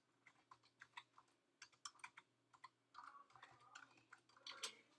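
Faint typing on a computer keyboard: quick, irregular key clicks, bunching up around the middle and again near the end.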